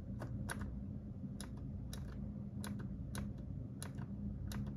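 A computer mouse button clicking about eight times at uneven intervals of roughly half a second to a second, over a steady low hum.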